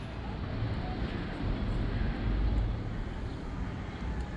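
Outdoor city street ambience on an action-camera microphone: a steady, low rumbling noise, swelling a little about two seconds in.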